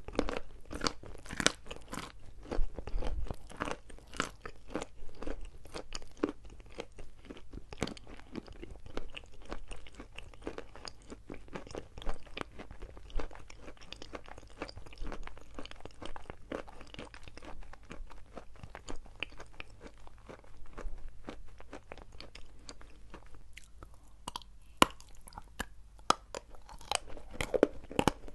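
Dry chalk being chewed close to the microphone: a dense run of crisp crunches, thinning for a few seconds past the middle, then coming back louder near the end.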